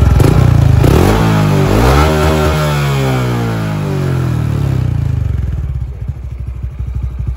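Honda Wave 125i single-cylinder four-stroke engine, bored to a 56 mm piston, revved through a soft-packed baffled ('pha mok') exhaust: the revs climb to a peak about two seconds in, then fall slowly back to an even idle by about five and a half seconds.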